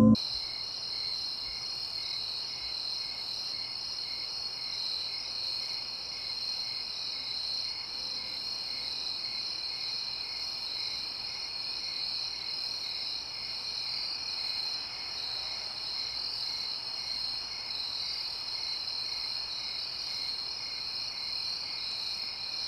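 Night-time chorus of crickets: a steady high trill with a softer chirp pulsing about twice a second.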